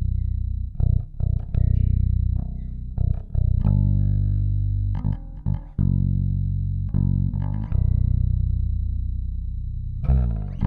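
Warwick Corvette $$ five-string electric bass played fingerstyle with a clean tone, its humbuckers switched to single-coil mode. A line of plucked low notes, some left to ring for a second or two, with a quick run of notes near the end.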